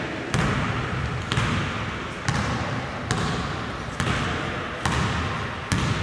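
Basketball being dribbled on a hardwood court, seven evenly spaced bounces a little under a second apart, each ringing on in the echo of a large gym hall.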